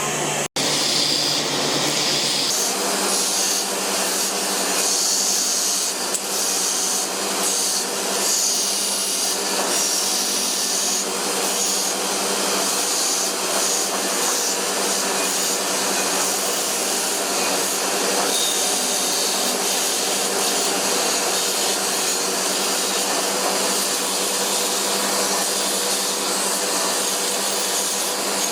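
Electric power tool running steadily with a continuous abrasive grinding hiss, typical of working the steel of a cleaver. There is a momentary dropout just after the start, and about two and a half seconds in the motor hum steps to a slightly higher pitch and then holds steady.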